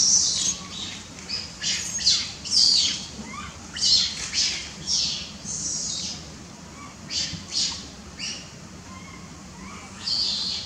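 Young long-tailed macaque screaming in short, high-pitched squeals, over and over, with a quieter spell in the middle: a baby's tantrum, crying to its mother for milk.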